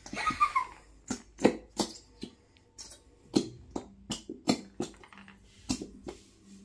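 Plastic squeeze bottles of thick glitter glue being squeezed hard into plastic tubs, giving an irregular run of sharp squelching pops and clicks.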